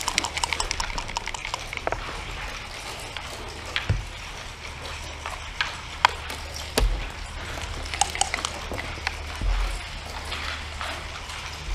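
Backgammon dice and checkers on a wooden board: a quick rattle of dice being shaken, then scattered sharp clacks and knocks as dice and checkers are set down on the wood, over a steady low hum.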